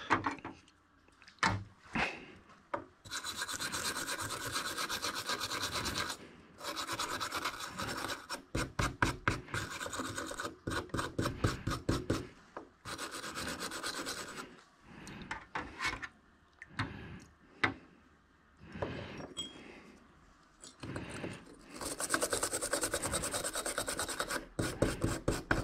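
Small wire brush scrubbing acetone-softened white primer off a 1/64 scale model truck cab held in pliers, in bursts of quick back-and-forth strokes with short pauses between.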